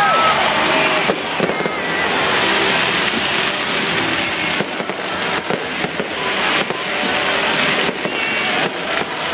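Fireworks display: a continuous barrage of bursting shells and crackle, with a few short whistles rising and falling among the bangs.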